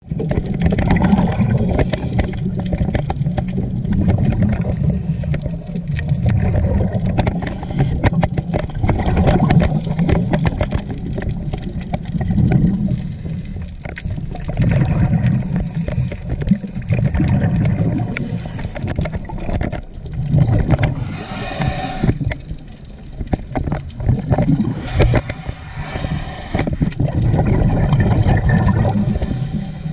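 Scuba diver's breathing heard underwater through the camera housing: a low, continuous rumble that swells every few seconds with each breath through the regulator, with a few bursts of exhaled bubbles.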